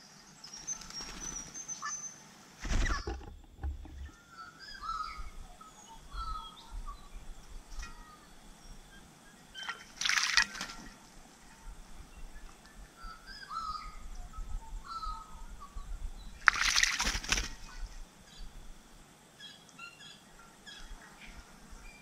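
A small bird bathing in a shallow bird bath: short bursts of splashing water and fluttering wings about three seconds in, again at about ten seconds, and a longer bout around sixteen to seventeen seconds. Scattered faint bird chirps run underneath.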